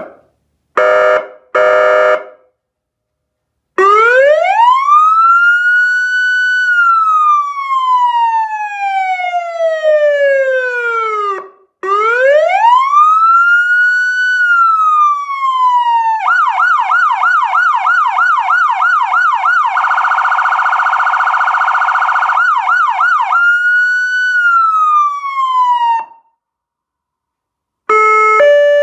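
Carson SA-441 electronic ambulance siren working through its tones. It gives two short blasts, then a slow wail that rises and falls twice. It switches to a fast yelp, then a very rapid warble for a couple of seconds, back to yelp, and ends on one more wail sweep that cuts off.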